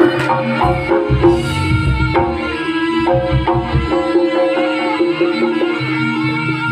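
Live Javanese jaranan ensemble music: hand-drum patterns over many held and ringing pitched instruments, played loud through a PA system. The low drumming is heavy for the first few seconds, thins out, and comes back near the end.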